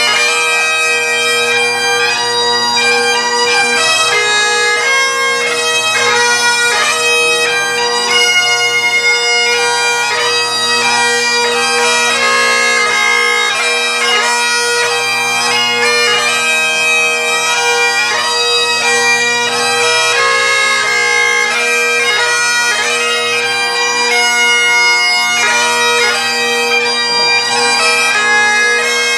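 Great Highland bagpipes playing a Celtic tune: a steady drone underneath a continuous chanter melody.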